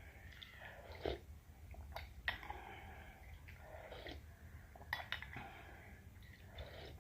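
Close-miked eating sounds: a person slurping soupy noodles and chewing, with irregular wet smacks and clicks.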